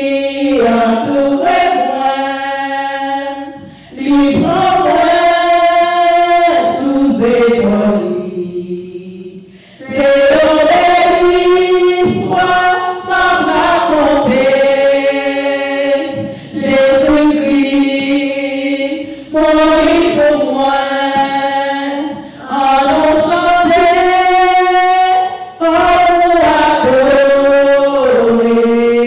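A woman singing a hymn unaccompanied into a handheld microphone, in long held notes with short pauses for breath between phrases.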